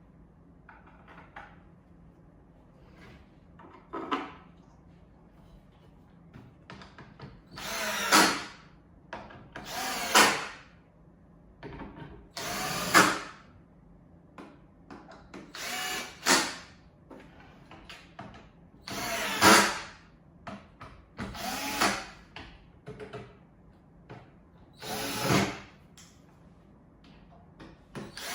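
Power drill driving screws into the boards of a bed platform: about eight short bursts a few seconds apart, with small knocks and handling sounds between them.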